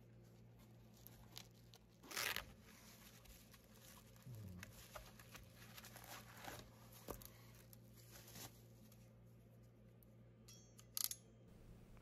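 Faint handling sounds: a short zip about two seconds in as a nylon case's zipper is pulled open, then quiet crinkling and rustling of bubble wrap being handled, with a couple of sharper crackles near the end.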